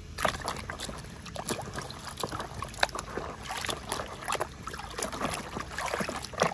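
A toy elephant being swished and rubbed by hand in a basin of thick muddy water: irregular sloshing and splashing.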